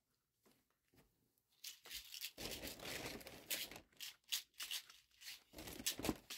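Near silence at first, then about a second and a half in, faint rustling and crinkling of a plastic shopping bag and small cardboard product boxes being handled, with a few light knocks.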